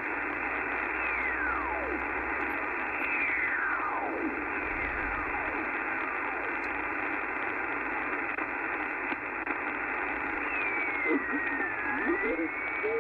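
Icom IC-R70 shortwave receiver's speaker giving hiss and static on the 20-metre amateur band as the tuning knob is turned across a quiet band. Whistling heterodyne tones sweep down in pitch three times in the first half as carriers pass by. Near the end a whistle dips and then holds steady, and a garbled, mistuned voice begins to come through.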